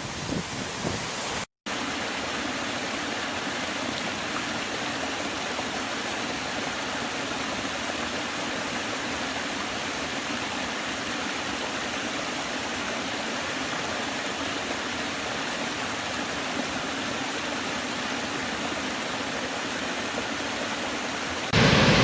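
Water spilling over a small rocky cascade in a forest stream: a steady, even rush of water. It opens with a larger waterfall heard through gusts of wind on the microphone, cut off about a second and a half in, and near the end a much louder, bigger waterfall takes over.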